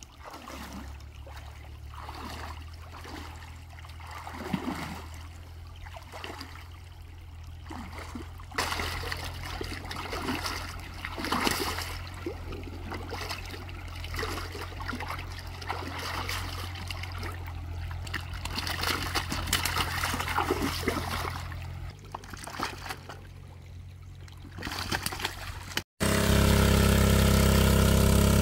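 Water splashing and sloshing as hands grab fish in shallow muddy water, over a steady low engine hum. After a cut near the end, the engine of a water pump runs loudly and steadily.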